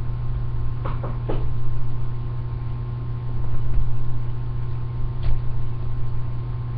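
Steady low electrical hum, with a faint steady higher tone above it, broken by two short knocks about a second in and another near the end.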